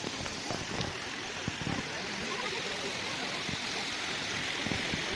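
Waterfall rushing, a steady hiss of falling water.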